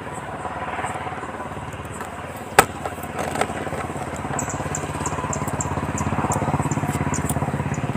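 Handling noise as a phone camera is moved about: a sharp knock about two and a half seconds in, then a few lighter clicks. Under it runs a steady low rumble that grows louder in the second half.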